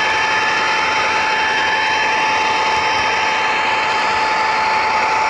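HO scale model train running along the track, heard from a camera riding on it: a steady whir of wheels and drive with a constant high-pitched whine.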